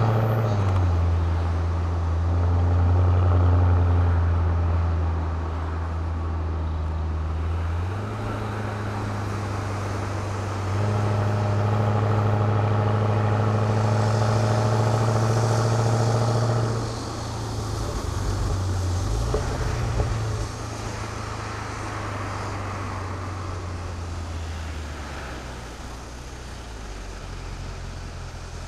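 Mercedes-Benz CL63 AMG's naturally aspirated 6.2-litre V8 on its stock exhaust, heard from inside the cabin while driving at low revs. The engine note steps up and down in pitch several times with gear changes and is loudest in the middle, then settles to a quieter cruise with road noise in the second half.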